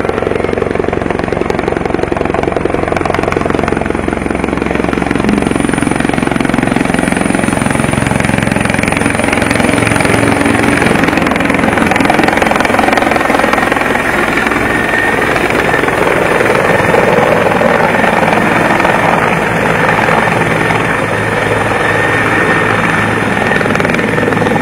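Bell 412 helicopter hovering and descending to land: a steady, loud rotor and engine noise with a thin high turbine whine above it.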